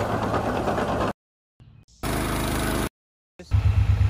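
Quick cuts of diesel machinery running, each clip stopping abruptly with a silence between. First a tracked loader's engine working rough and noisy, then about a second of a steady engine drone, then a compact tractor's engine with a loud low throb near the end.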